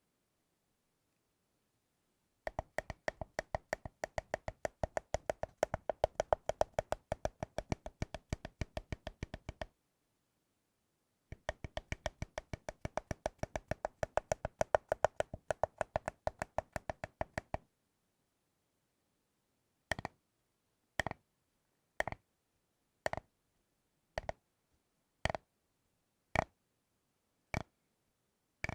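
Tapping on a thick bar of chocolate: two long runs of quick, even taps, then single taps about once a second near the end.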